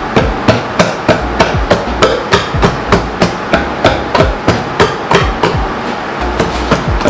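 Cake batter being beaten by hand in a bowl: steady knocks of the spoon against the bowl, about three a second.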